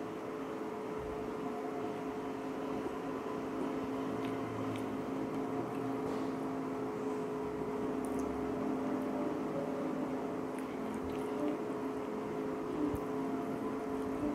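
A steady machine hum holding several fixed pitches, with a few faint clicks now and then.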